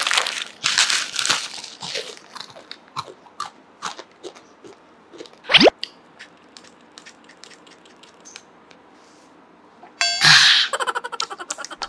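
Close-miked candy-eating sounds: a plastic candy packet being torn open and crinkled, then crunching and scattered chewing clicks. A quick rising whoosh cuts in about halfway, and there is a loud noisy burst near the end.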